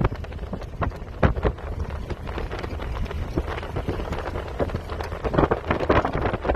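Wind buffeting the microphone: a steady low rumble with irregular knocks and crackles.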